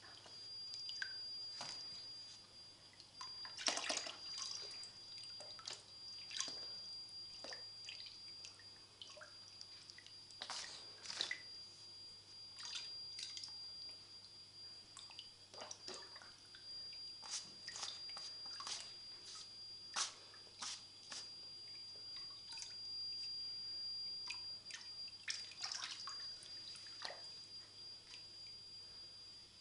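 A young mink paddling and splashing in shallow water in a plastic paddling pool as it is filled from a garden hose: irregular small splashes and drips, a few a second.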